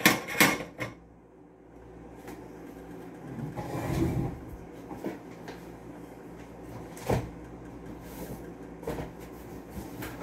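Kitchen handling noises: pots and pans clanking in the first second, then a few scattered knocks, one sharper about seven seconds in, over a low steady hum.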